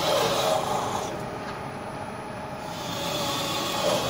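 Brake shoe drilling machine running, its drills cutting holes through a steel brake shoe with a steady grinding, metal-on-metal sound. A louder surge of about a second comes at the start and again near the end, as the work steps round between holes.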